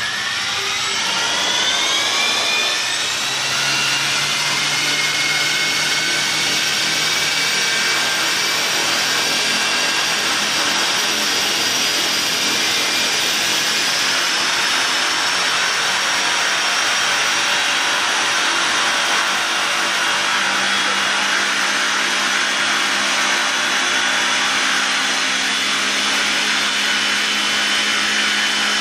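Radio-controlled helicopter with lit rotor blades spinning up: a whine rises in pitch over the first two seconds or so. The motor and rotors then run at a steady speed, a whirring whine over a steady rushing noise.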